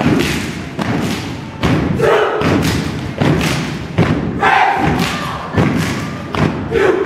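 A group of dancers stomping and hitting out a percussive routine, heavy thuds about twice a second, with shouted calls between some of the beats.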